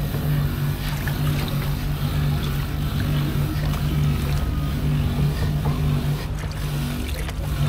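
A steady low motor hum that swells and dips, with water swishing and small knocks as a long-handled plastic scoop stirs husked coconuts in a plastic tub of water.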